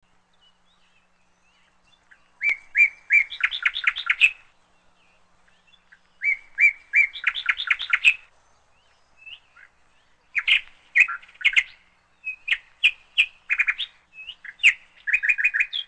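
A songbird singing: two similar phrases, each a few steady notes followed by a quick run of notes, then a longer string of varied chirps and short trills in the second half.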